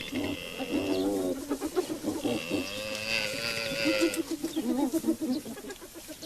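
Wild animal cries: several wavering, bleat-like calls that rise and fall in pitch, then a quick pulsed series of calls near the end. They come from a hyena attack on a Cape buffalo and her calf.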